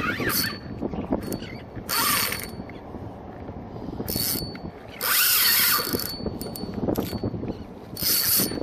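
Spinning fishing reel working, a mechanical ratcheting buzz that comes in about five short bursts, the longest and loudest a little after five seconds in.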